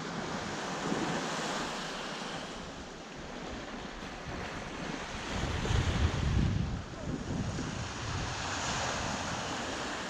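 Small sea waves breaking and washing up a sandy shore, the surf hiss swelling and fading, loudest a little past halfway. Wind rumbles on the microphone.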